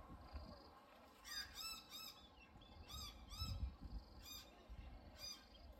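A bird calling in short, arched chirping notes, mostly in quick pairs, repeated several times over a faint low rumble.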